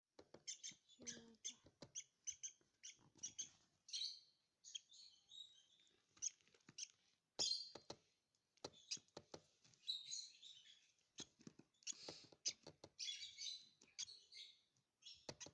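Lovebird chicks chirping faintly, with many short high chirps coming in quick, irregular runs.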